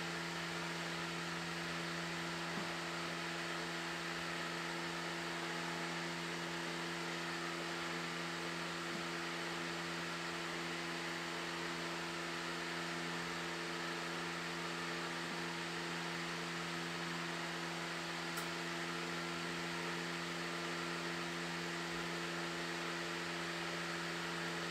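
A steady machine hum with several held tones over an even hiss, unchanging throughout.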